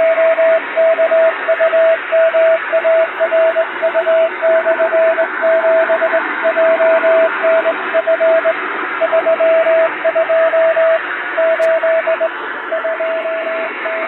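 Morse code telegram keyed on a vertical straight key, heard as a single steady beep switched on and off in dots and dashes over shortwave-style hiss. It sends the message preamble, ship name Seitoku Maru with call sign 7JNF, word count and date, then the break sign. Near the end the signal fades weaker into the noise.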